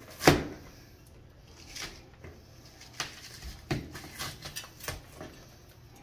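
Painted hatch trim being pulled loose from its caulk and paint: one sharp crack just after the start, then scattered small clicks and creaks as it works free.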